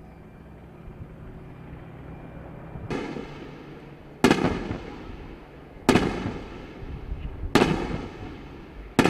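The steady drone of an AH-64 Apache helicopter for about the first three seconds. Then four sharp explosive blasts of munitions striking a target, about a second and a half apart, each dying away over a second or so.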